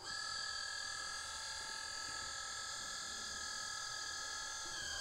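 Hydraulic pump of a 1:14 scale RC crane truck whining steadily as the hydraulic outriggers extend downward to lift the truck off the ground. Its pitch drops slightly near the end.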